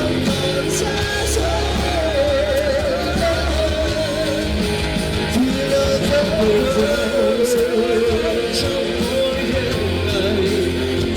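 Rock music: a band with guitar plays a slow song, with a wavering lead melody line over the accompaniment.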